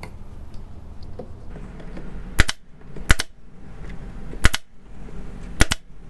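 Harbor Freight pneumatic brad nailer firing four times, about a second apart, each shot a sharp double crack as it drives a brad into wood.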